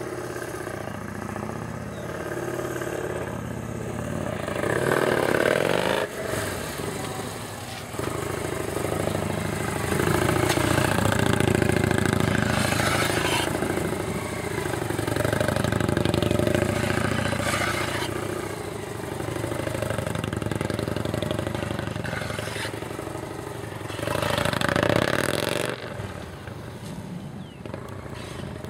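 Police touring motorcycle engine held at low revs through tight slow-speed cone manoeuvres, swelling and easing several times as the throttle is worked gently.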